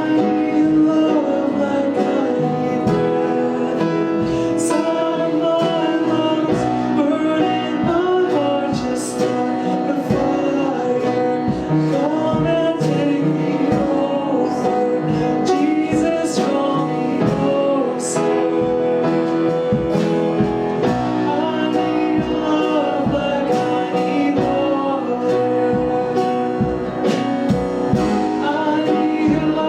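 Worship music: guitar playing with singing.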